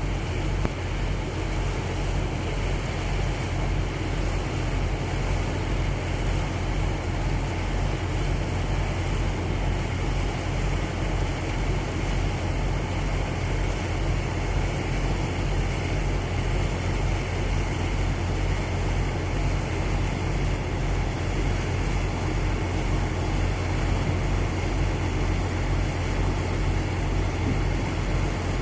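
A small tugboat's engine running with a steady low drone over a broad rushing noise, unchanging throughout.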